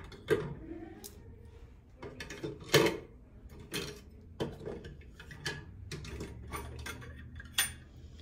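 Stainless steel flatware clicking and clinking against a plastic cutlery holder as the pieces are dropped one by one into its slots: a string of irregular sharp clicks and knocks, the loudest just under three seconds in.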